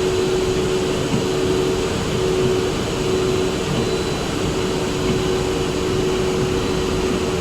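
Cable extrusion line machinery running steadily: a constant mechanical hum with a steady tone through an even noise.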